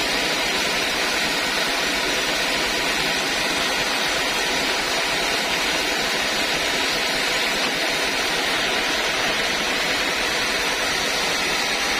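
Sawmill saw running with a steady, unbroken noise.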